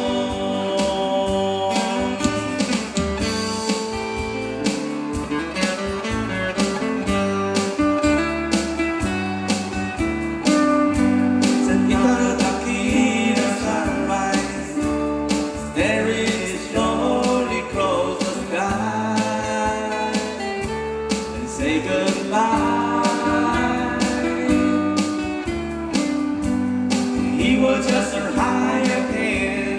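Live band of electric guitars and bass guitar playing a pop song over a steady beat, with a voice singing in some passages.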